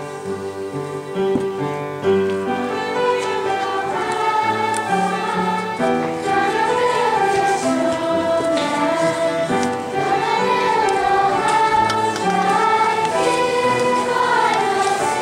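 A group of young performers singing a song together on stage, with instrumental accompaniment.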